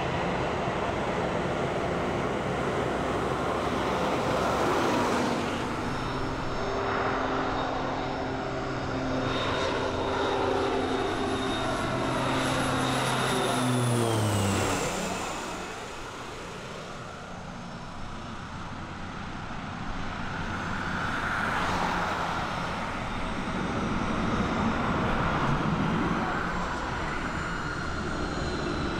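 Jet airliner passing close by: a steady engine hum and high whine that fall sharply in pitch about halfway through as it goes past. This is followed by a broad rush of engine noise that swells and fades.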